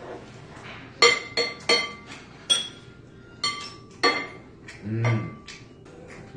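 Ceramic dishes and cutlery clinking as plates and a serving utensil are handled on a table: about six sharp, ringing clinks spread over several seconds. A short hum-like vocal sound about five seconds in.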